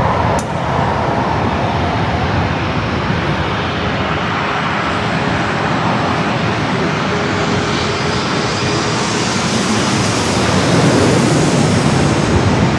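Jet airliner on approach, its engines a steady loud rush that swells, with a stronger high hiss, about ten seconds in.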